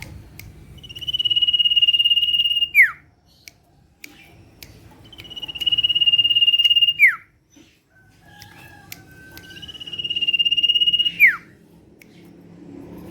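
Common iora (cipoh, called sirtu) singing: three times a long, even, trilling whistle, each ending in a quick downward slur, with pauses of about two seconds between them.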